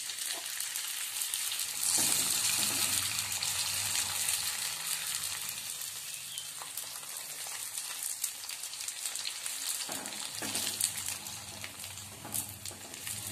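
Sun-dried jowar (sorghum) papad deep-frying in hot oil in a small iron kadai: a steady sizzle that grows louder about two seconds in, then slowly eases.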